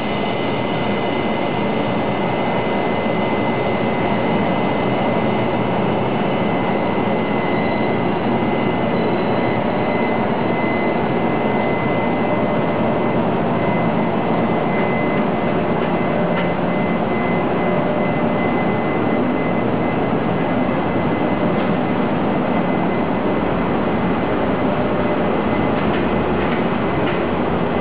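A Taiwan Railway electric locomotive and its blue passenger coaches pulling slowly out of the station: a steady mechanical hum and rumble with a thin, steady high whine over it.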